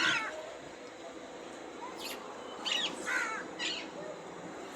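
Several short bird calls: one at the start and a quick cluster of three a little before the middle, over a faint steady background.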